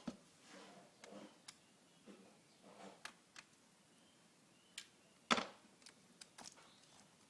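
Scattered light clicks and taps, with one louder knock about five seconds in, like small parts and tools being handled during a laptop repair.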